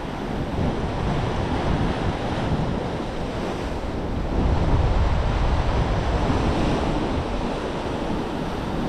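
Sea surf washing onto the shore, with wind buffeting the microphone; the rush swells a little about halfway through.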